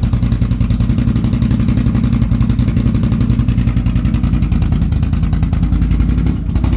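Can-Am Renegade 1000 XMR's Rotax V-twin running steadily after the misfiring cylinder has kicked back in. Near the end the running dips briefly and changes as a cylinder cuts out again: an intermittent misfire, with the engine dropping to one cylinder.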